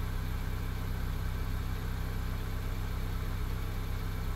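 Honda Accord's engine idling steadily, heard from inside the cabin.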